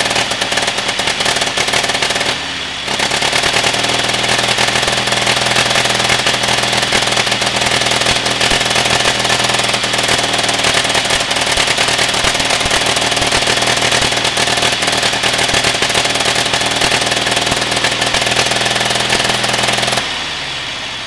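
The engine of a 1946 Caterpillar D6 5R-series crawler running, with a fast, hard hammering beat. It dips briefly about two and a half seconds in. Near the end much of the sound cuts off abruptly and what remains fades away.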